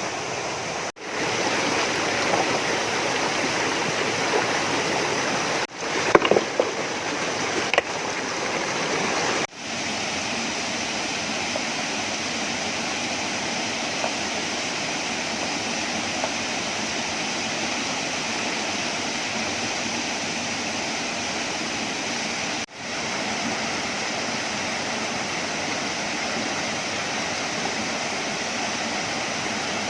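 Stream water rushing steadily. A few brief sharp sounds come about six to eight seconds in, and the sound drops out for a moment several times.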